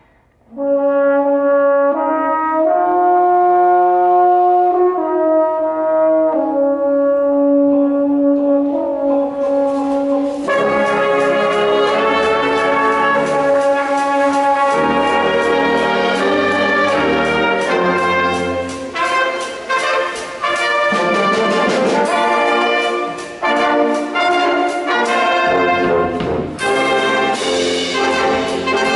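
Brass ensemble playing: held brass chords come in about half a second in. About ten seconds in, drum kit and cymbals join with the full band.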